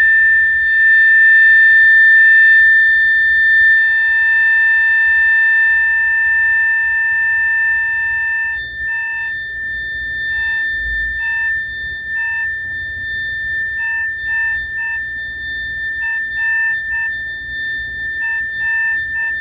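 High-gain electric guitar amplifier feedback: a loud, steady, high whistling tone. A second, lower tone starts cutting in and out in short, irregular pulses about eight seconds in, which the player attributes to a 433 MHz transmitter changing the frequency.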